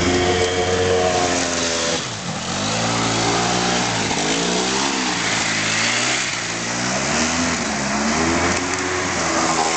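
ATV engine revving up and down over and over, its pitch rising and falling every second or two, as the quad drives through river water with spray splashing off the wheels.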